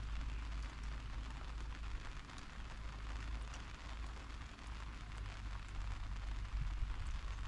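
Steady rushing noise: a fluctuating low rumble with a hiss above it and a few faint ticks.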